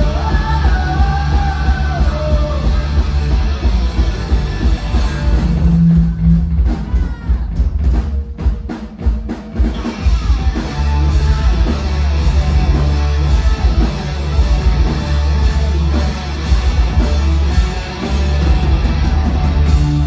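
Live rock band playing loud: electric guitars, bass and drum kit, with a singer's voice in the first couple of seconds. About six seconds in the band thins out to a short break of separate hits, then the full band comes crashing back in around ten seconds.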